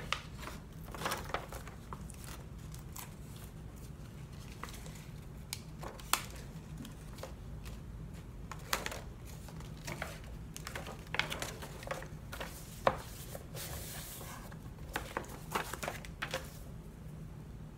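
Paper envelopes being handled and folded: scattered rustles, crinkles and light taps of paper, with a longer swish of paper about fourteen seconds in.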